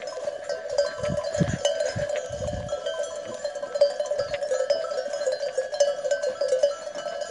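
Many livestock bells on a grazing flock of sheep and goats clanking irregularly, their ringing tones overlapping continuously. A few low thuds come about one to three seconds in.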